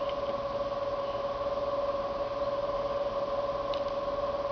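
Steady background whine of two constant tones over a hiss, with a couple of faint clicks near the end.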